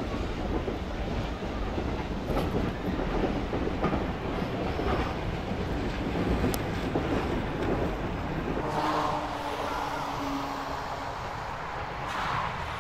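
Carriages of a steam-hauled train rumbling and clattering over the rails as they pass close by. About nine seconds in, the sound drops suddenly to a quieter, distant train with a low steady hum.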